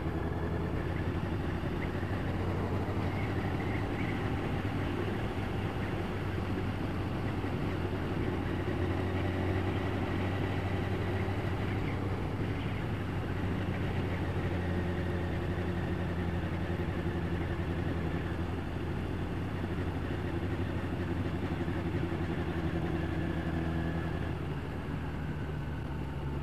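Motorcycle engine running steadily at road speed, heard from the rider's seat, under constant wind and road noise.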